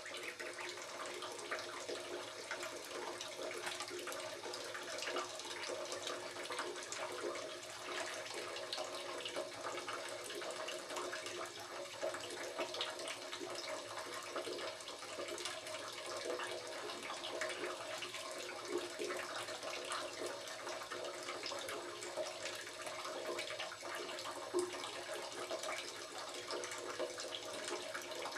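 Ducklings swimming in a bathtub: continuous small splashes and water lapping against the tub, over a steady hum.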